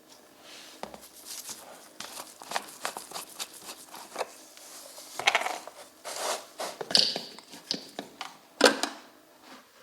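Irregular handling noises: a run of clicks, knocks and rustling, with a few louder knocks in the second half.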